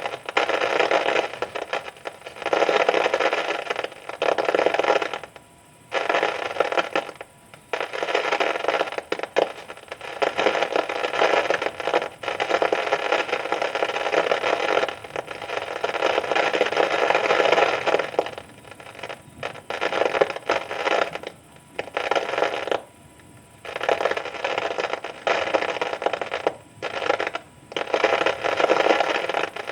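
Steady hissing noise of a storm downpour, breaking off abruptly for a moment every few seconds.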